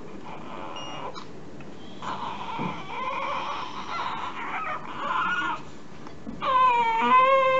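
Newborn baby crying: uneven wailing from about two seconds in, then a long, loud, steady cry that begins near the end.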